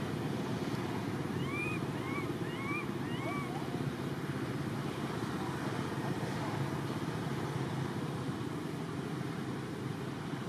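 Steady low wind noise on the microphone, with four short high squeaks, each rising then falling, between about one and a half and three and a half seconds in.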